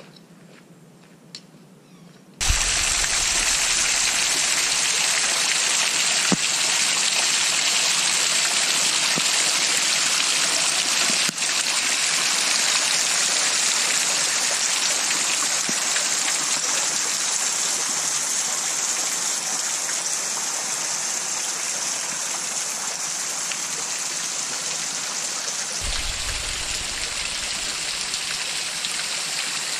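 Rushing stream water, a loud steady wash that cuts in suddenly about two seconds in and runs on without a break.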